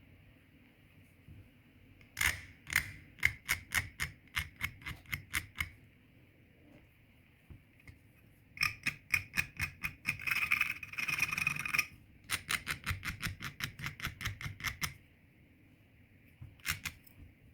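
Hand-sanding a Zippo lighter's metal case edge: quick back-and-forth sanding strokes, about three to four a second, in three runs with short pauses, a denser continuous scratching in the middle run, and a couple of last strokes near the end. The raised edges of a slanted factory cut are being filed down to close the lid gap.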